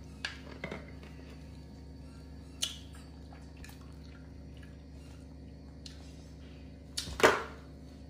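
Light handling noises while a pet macaque eats fruit and drinks from a plastic feeding bottle: a few small clicks in the first three seconds and one louder knock about seven seconds in, over a steady low hum.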